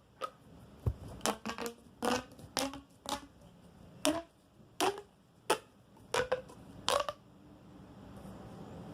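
A silicone pop-it fidget tube being worked down its length, about a dozen sharp pops roughly half a second apart, stopping about seven seconds in.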